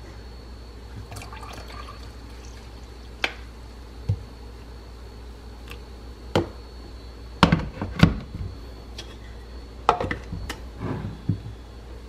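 Frothed milk poured from a Keurig milk frother jug into a ceramic coffee mug, with scattered sharp clinks and knocks of the jug against the mug. The loudest knocks come as a pair a little past the middle.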